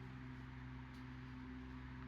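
Quiet room tone with a low, steady hum and no distinct events.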